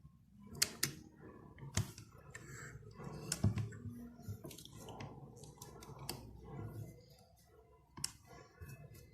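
Faint handling sounds from fabric and sewing tools: scattered light clicks and taps over soft rustling.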